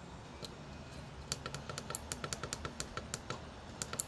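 Small tactile push buttons on a boost converter module's control board clicking repeatedly as the charge current setting is stepped: one click, then a quick run of about a dozen clicks in the second half.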